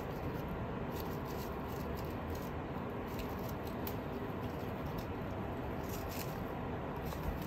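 A cat biting and pawing at a small toy, giving faint scattered clicks and scratches over a steady background hiss.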